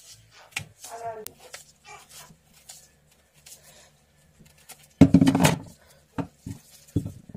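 Kitchen knife cutting into a small pumpkin: scattered clicks and scrapes, with a loud burst of cutting noise about five seconds in. A short murmured voice-like sound comes about a second in.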